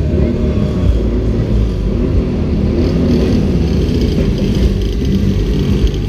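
Motorcycle engines running, their revs rising and falling a few times, over a steady low rumble.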